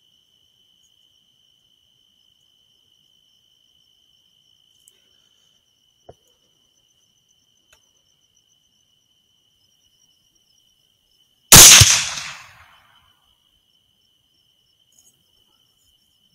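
A single rifle shot about two-thirds of the way through, loud and sharp, its report trailing off over about a second. Crickets trill steadily before and after it.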